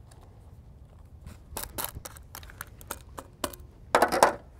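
A spoon spreading dry cake mix over a parchment-paper liner in a cast-iron Dutch oven: scattered short scrapes and paper rustles, with a louder burst of crinkling and scraping near the end.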